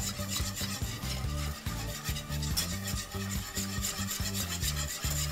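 Wire whisk beating a thin mix of milk, chicken stock and flour in a nonstick pot, quick continuous strokes rubbing and scraping against the pot's sides and bottom: the uncooked béchamel base being mixed smooth. Low background music runs underneath.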